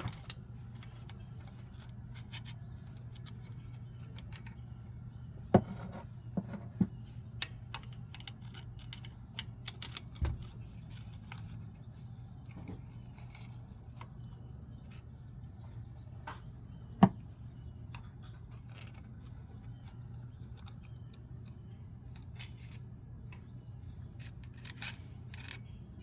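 Scattered metal clinks and clicks of small parts and hand tools being handled, with a few sharper knocks, over a steady low hum.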